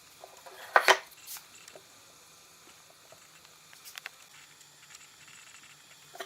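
Two sharp knocks close together about a second in, then a few faint light clicks, like hard objects being handled and set down.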